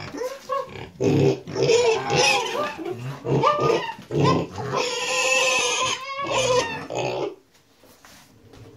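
A pug making a run of short, pig-like grunts that stop about seven seconds in.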